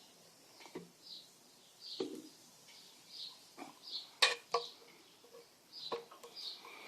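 Short high chirps repeating irregularly, like a small bird, with a few sharp clicks and taps in between; the loudest click comes about four seconds in.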